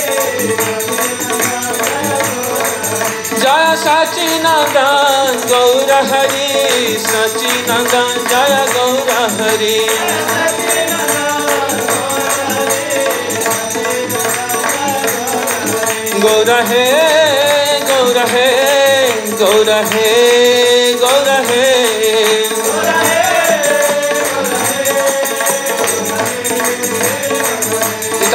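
Harmonium playing a kirtan melody under a man's sung chanting, with percussion keeping a steady beat. The voice comes in long phrases, strongest from about three seconds in and again from about sixteen seconds.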